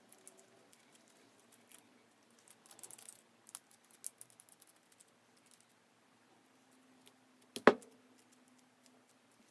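Sticky clear slime being stretched and kneaded by hand, giving scattered small clicks and crackles, with one sharp knock a little before the end.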